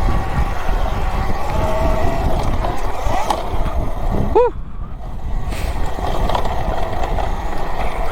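Talaria Sting electric dirt bike under way, its motor whining over steady rough riding noise. About four and a half seconds in the motor whine swoops up and back down in pitch while the rough noise briefly drops away, then the riding noise returns.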